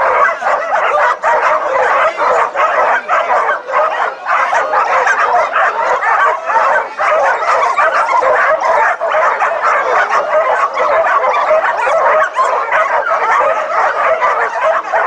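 A large pack of canicross dogs barking, yipping and whining all at once in a continuous din, the excited clamour of dogs harnessed to their runners and eager to be off.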